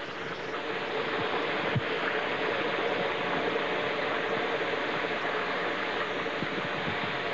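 Cut potatoes deep-frying in hot oil in a stainless steel fryer pot, a steady sizzling that swells as the fry basket goes under and then holds. A single knock of the metal basket hook against the pot comes about two seconds in.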